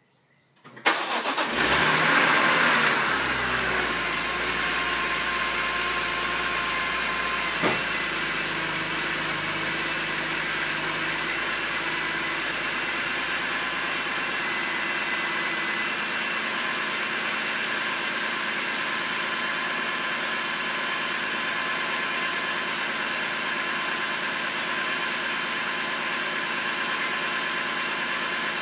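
BMW M3 straight-six with a freshly rebuilt VANOS starting up about a second in, flaring briefly, then settling into a steady idle. There is a single short click about eight seconds in.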